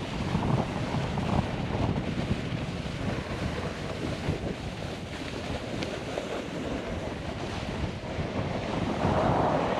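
Wind buffeting the microphone over the hiss of a snowboard sliding across slushy spring snow, a little louder and harsher about nine seconds in.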